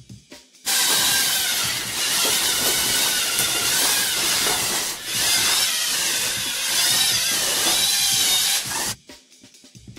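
Lego robot motors and gears whirring and grinding with a wavering whine, starting abruptly about a second in and cutting off near the end.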